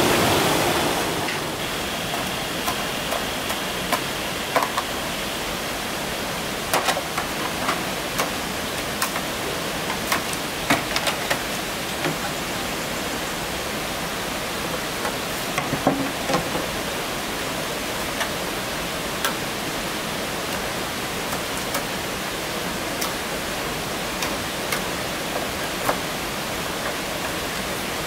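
Steady rush of a rocky forest stream, louder for about the first second, with scattered sharp knocks of wood and tools as work goes on on a wooden frame.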